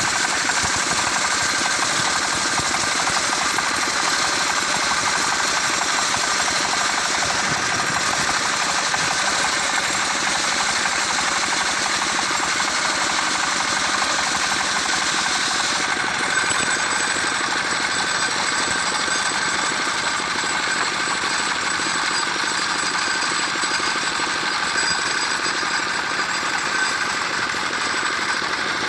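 Engine-driven circular sawmill running steadily while sawing mango wood, a dense mechanical din with a strong high hiss. About halfway through, the highest part of the hiss drops away while the engine noise carries on.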